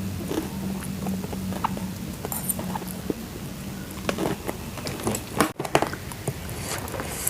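Close-up eating sounds: irregular crunching and chewing clicks of crisp food being bitten and chewed, over a low steady hum.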